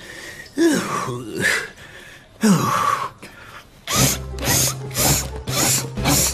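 A man's short wordless grunts and mumbles, each falling in pitch. From about four seconds in comes a rhythmic scratching, about two or three strokes a second, over a steady low hum.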